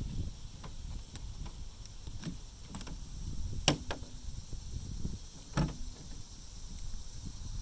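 Windshield wiper arm and blade being handled as the blade comes off the arm's hook: two sharp plastic-and-metal clicks about two seconds apart, with lighter ticks around them.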